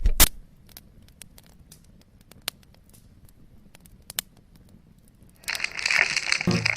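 A sharp click, then scattered light clicks and taps of packaging being handled, turning about five and a half seconds in into louder crinkling and tearing of the wrapping; music starts near the end.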